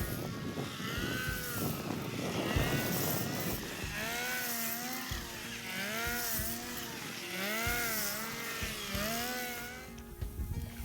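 Small engine of a handheld rice cutter running, its pitch rising and falling about once a second.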